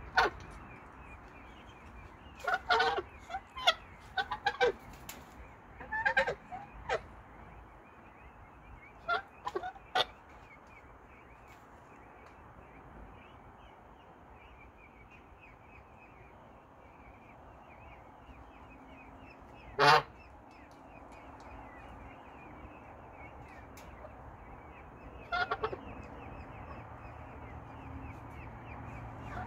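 Domestic fowl calling in short bursts: several quick runs of calls in the first ten seconds, one louder, longer call about twenty seconds in, and another short run near the end. A faint, steady chatter of small chirps runs underneath.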